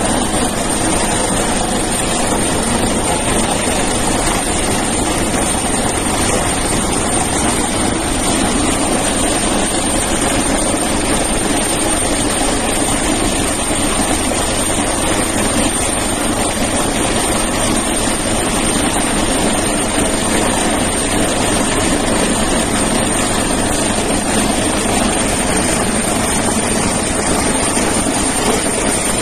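Helicopter hovering low overhead, its rotor and engines running with a loud, steady, unbroken noise.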